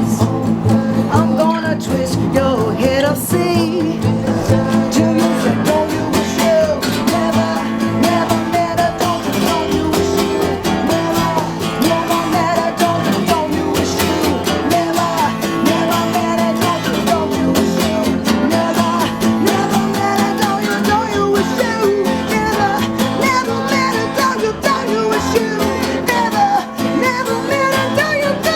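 Acoustic guitar and upright bass playing a rock song, with a woman singing over them.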